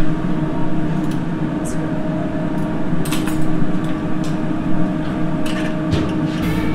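Steady hum of restaurant kitchen equipment, with a few light clinks of a fork and knife on a ceramic plate as chicken is cut.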